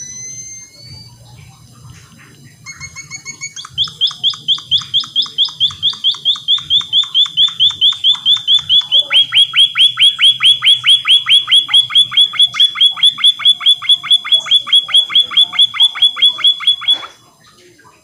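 Caged white-headed munia (emprit kaji) singing. A few thin whistles come first. From about four seconds in, a long rapid string of identical repeated notes follows, about four or five a second; it slides slightly lower, then holds one pitch, grows louder, and stops abruptly about a second before the end.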